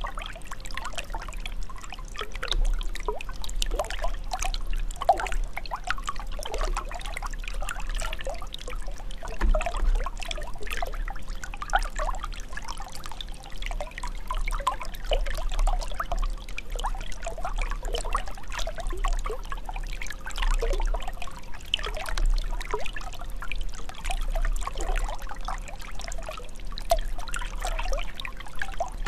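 Running water trickling and pouring without a break, full of small irregular splashes, over a faint steady hum.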